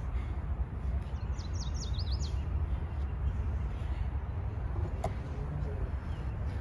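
A small bird chirps a quick run of about eight short, high, downward-sweeping notes about a second in, over a steady low rumble. A single sharp click comes near the end.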